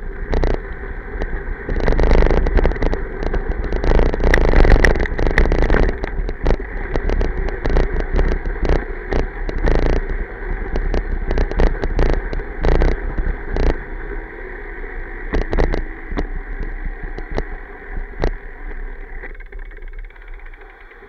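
E-bike ridden over a gravel campsite path, heard from a camera on the bike: a steady rumble of wind and tyres with a faint steady whine, and frequent clicks and knocks as the bike bumps and rattles. It quietens over the last couple of seconds as the bike slows.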